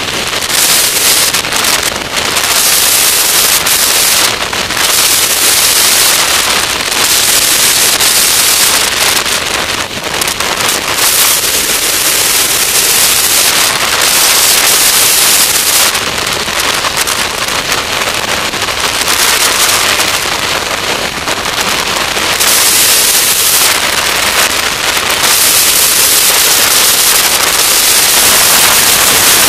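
Harsh, crackling wind rush from the slipstream buffeting a microphone mounted on the wing of an Avid light aircraft in flight, swelling and dipping from moment to moment, with no steady engine note standing out.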